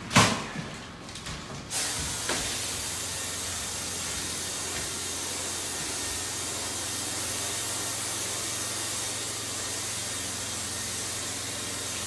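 A few knocks, then about two seconds in a Graco Pro Xp60 electrostatic air spray gun starts a steady hiss as it sprays catalyzed acrylic enamel. The gun has an internal-mix round-pattern nozzle, with its atomizing air turned down to almost nothing.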